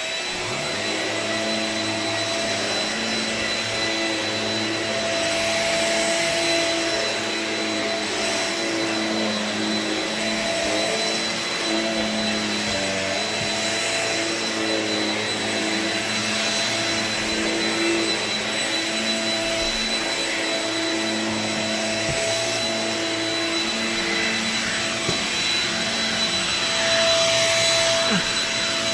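Corded Shark Rocket Ultralight Upright stick vacuum switching on and running steadily with a high whine.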